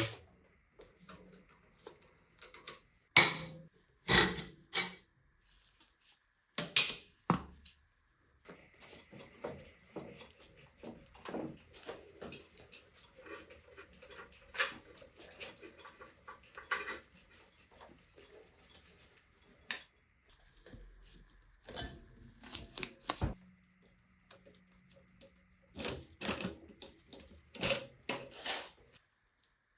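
Metal tools and bicycle parts clinking and knocking as they are handled, in irregular single strikes with a louder cluster near the end.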